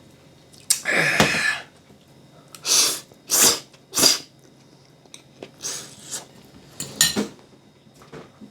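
A person slurping spaghetti: a long slurp about a second in, three short sharp slurps a couple of seconds later, then softer ones near the end.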